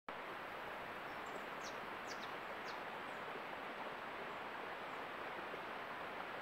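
Steady outdoor background hiss with a few short, high chirps that fall in pitch, about one to three seconds in.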